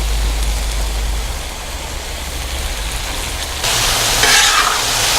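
Chicken and broccoli sizzling on a hot 28-inch Blackstone griddle, a steady frying hiss. About three and a half seconds in the sizzle jumps suddenly louder as the teriyaki sauce hits the hot surface.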